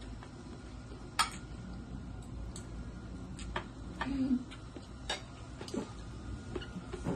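Scattered light clicks of spoons and forks against plates and bowls during a meal, the sharpest about a second in, with a brief low voice sound about four seconds in.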